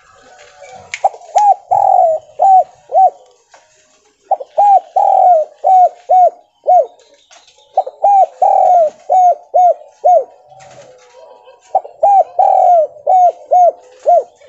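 Spotted dove (tekukur) cooing in four phrases of five or six quick, arching coo notes each, with short pauses between the phrases. This is the stuttering "gagap" song, which carries more notes than the usual three-note call.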